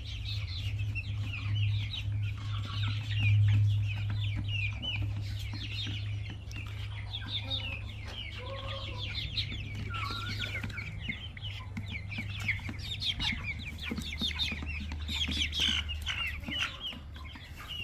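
A flock of young chickens peeping and clucking, many short high calls overlapping throughout, with a few lower clucks among them. A steady low rumble runs underneath.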